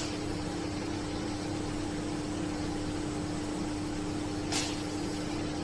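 Steady machine hum, one constant low tone over a hiss, with a single short click about four and a half seconds in.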